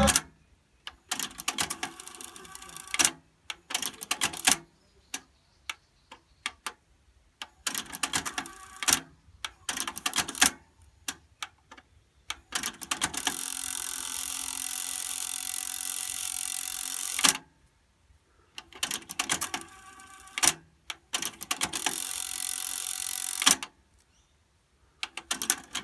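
Technics RS-TR232 cassette deck transport being worked: sharp mechanical clicks as the stop, rewind and fast-forward buttons are pressed and the mechanism engages, with two stretches of steady whirring, about four seconds and then about two and a half seconds long, as the tape winds at high speed.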